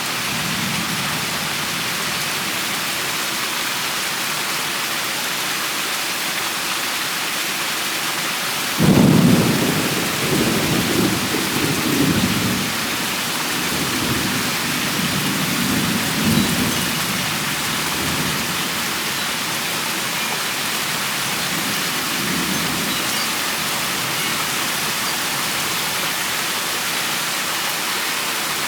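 Steady rain falling, with a sudden clap of thunder about nine seconds in that rumbles on in rolling waves for several seconds, and a fainter rumble of thunder later on.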